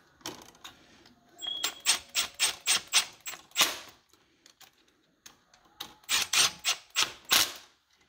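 Screwdriver tightening the brass terminal screws of a wall switch: two runs of quick, evenly spaced clicks, about five a second, with a pause between.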